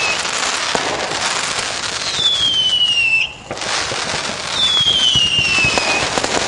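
Fireworks going off: continuous loud crackling and popping with whistling rockets, two falling whistles about a second long each. The sound dips out briefly a little after three seconds in.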